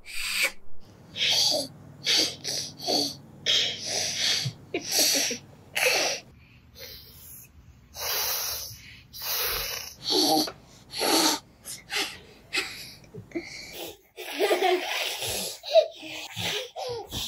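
Many short, breathy hisses in a row, made by an older man and then children blowing out with the tongue pressed to the roof of the mouth to imitate a Gila monster's hiss. Giggling comes in near the end.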